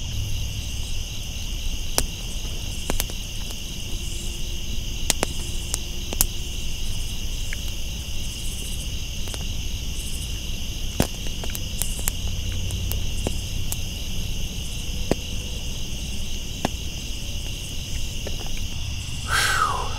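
Night insect chorus, a steady high-pitched shrill trill in two layers, with scattered sharp clicks and a faint low rumble beneath.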